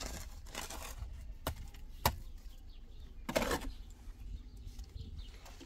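Steel shovel scraping mortar across concrete blocks, with two sharp knocks of the blade on the blocks about one and a half and two seconds in, and another longer scrape a little after three seconds.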